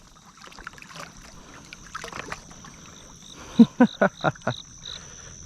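Low outdoor background with a steady high-pitched drone. About three and a half seconds in, a man's voice gives a quick run of about five short bursts.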